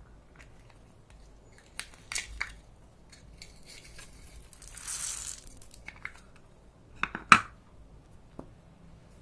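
Hands handling slime-making supplies: scattered clicks and crinkles, a short rustling hiss about five seconds in, and a couple of sharp clicks just past seven seconds, the loudest of them.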